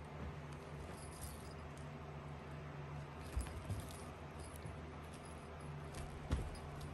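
Kitten wrestling and kicking a small cat toy on a couch cushion: faint, scattered jingling and rattling from the toy, with a soft thump about six seconds in, over a low steady hum.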